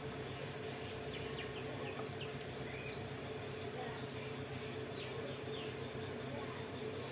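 Many short, high chirps of small birds scattered over a steady low hum.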